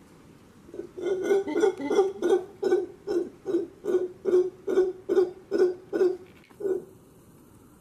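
Howler monkey calling: a run of about fifteen pulsed calls, roughly two and a half a second, starting about a second in and stopping shortly before the end.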